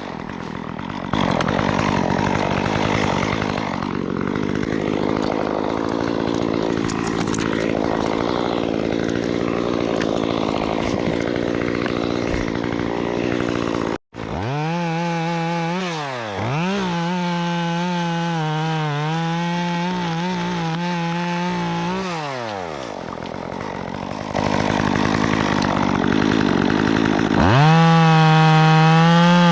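Stihl MS 194T top-handle two-stroke chainsaw cutting into wood under load for the first half, then cutting off abruptly for a moment. It then revs freely with its pitch rising and falling, bites into the wood again, and revs up to a steady high speed near the end.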